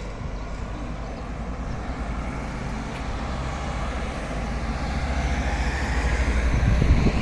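Road traffic, a motor vehicle going by and growing louder toward the end, over a low, uneven rumble of wind on the microphone.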